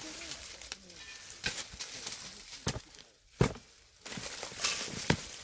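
Dry leaf litter rustling with several sharp cracks of roots and twigs snapping as a small shrub is dug out by hand and shovel, the loudest crack about three and a half seconds in.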